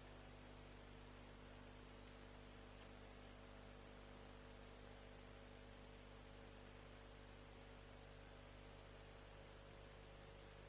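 Near silence: a faint, steady electrical hum over hiss.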